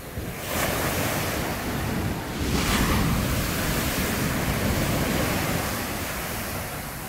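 Sea surf breaking and washing up the beach in a loud rush, swelling twice, a little after the start and most strongly just under three seconds in, then easing off. Wind buffets the microphone.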